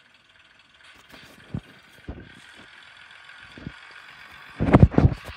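The sound decoder of a Graham Farish N gauge Class 108 DMU model plays its diesel engine running sound through the model's small speaker as the train moves. The engine sound comes up about a second in, with a few scattered thumps and a loud cluster of knocks near the end.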